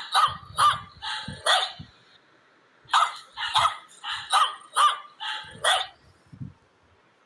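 A dog barking: a quick run of sharp barks, a pause of about a second, then a second run of about six barks, stopping about a second before the end.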